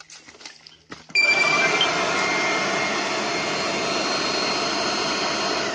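Electric ducted fan on a homemade powered exoskeleton suit kicking on abruptly about a second in, running with a loud steady rush of air and a thin high whine, then shutting off and winding down at the end. It is an accidental, premature firing of the suit.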